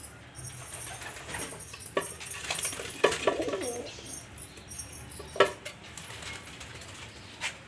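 Fantail pigeons cooing, with about four sharp knocks among the calls.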